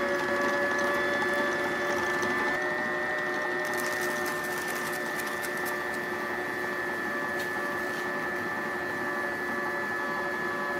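Electric stand mixer with a centre-drive bowl running at a steady speed, its beaters creaming butter and shortening for a cake batter. In the middle, sugar poured in from a metal scoop adds a faint gritty patter.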